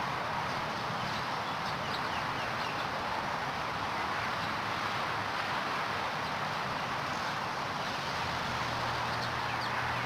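Steady outdoor background noise with a low hum underneath, and faint short bird chirps now and then.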